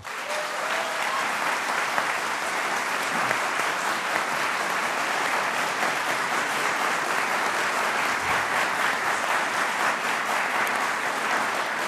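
A large audience applauding in a hall, a dense, steady clapping that holds at an even level throughout.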